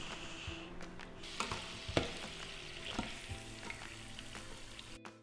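Fresh tortellini sizzling as they deep-fry in hot vegetable oil, with a few sharp clicks as the wire spider strainer knocks against the saucepan, the loudest about two seconds in.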